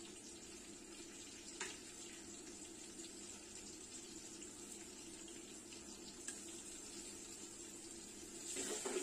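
Sliced onions frying in oil in an aluminium pot, a steady sizzle with two light clicks, growing louder near the end.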